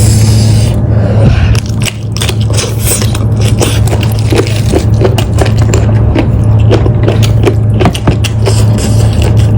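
Close-up eating sounds of a person gnawing and chewing lamb: a dense run of short wet clicks and scrapes of teeth on meat and bone, over a steady low hum.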